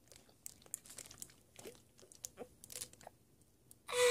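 Faint crinkles and clicks of a clear plastic drink bottle being handled, with some chewing. Near the end a loud vocal cry that falls in pitch.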